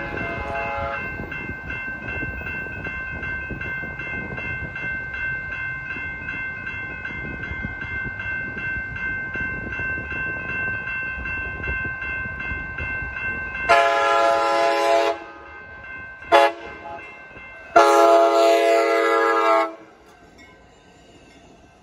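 A grade-crossing warning bell rings in a steady pulse over the growing rumble of an approaching Amtrak Pacific Surfliner train, with the tail of a horn blast in the first second. About 14 seconds in, the cab car's horn sounds long, short, long for the crossing. Near the end the horn stops and the cars pass with a quieter rolling sound.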